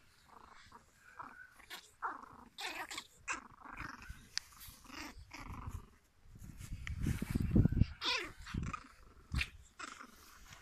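Pomeranian puppies play-fighting, with short puppy growls and yaps. A louder low rumble comes a little past the middle and lasts a second or two.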